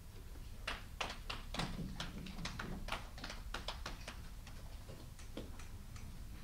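A quick, uneven run of sharp clicks or taps, about three a second, that starts under a second in and dies out after about four and a half seconds, over a low room hum.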